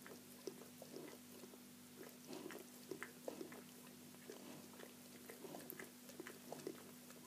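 Faint, irregular wet smacking and clicking from newborn Greater Swiss Mountain Dog puppies and their mother, a few small sounds a second, over a low steady hum.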